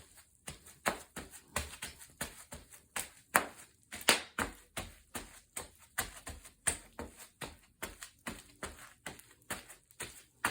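Bubble wrap popping underfoot: an irregular run of sharp pops, about three a second, with the two loudest a little past three and four seconds in.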